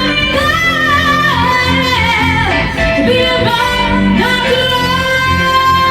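Live duo music amplified through Rockville Titan portable column array speakers: a lead melody with sliding, wavering notes over steady keyboard chords, settling on a long held note near the end.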